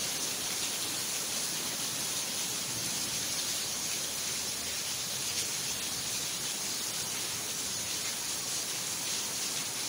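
Very heavy rain pouring down steadily: an even, unbroken hiss.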